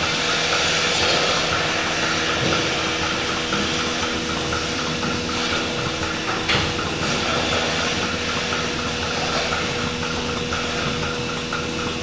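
DeLaval milking machine running in a milking parlour: a steady mechanical hum and hiss with a faint regular ticking, typical of the vacuum system and pulsators. A single metallic knock about six and a half seconds in.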